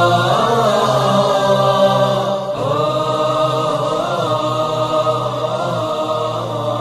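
Slow background music of layered voices chanting long held notes over a steady low drone, the chord shifting about two and a half seconds in.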